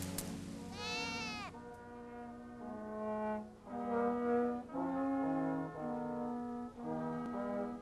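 Background film-score music: a slow melody of long held notes, with a brief sliding tone about a second in.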